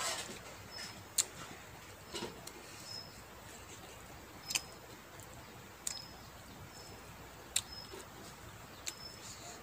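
Eating sounds from a meal of rice and pork eaten by hand: about five sharp clicks and smacks at irregular intervals, with faint mouth and finger sounds between them.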